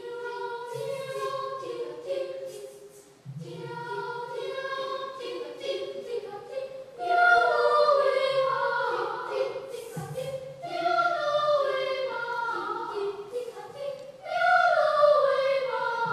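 Children's choir singing in phrases, with louder swells about seven seconds in and again near the end.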